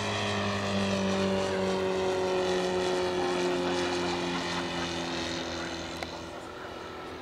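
Roto 85 four-stroke boxer engine of a 1/3-scale Fokker Dr.1 triplane RC model running in flight, its propeller drone sliding slowly down in pitch and growing fainter after about a second.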